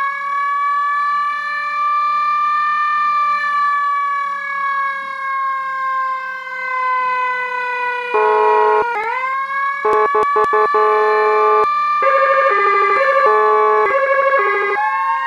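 Whelen HHS3200 electronic siren: a long siren tone that rises and then slowly falls over about eight seconds, then switches to short choppy blasts and rapidly alternating, pulsing tones.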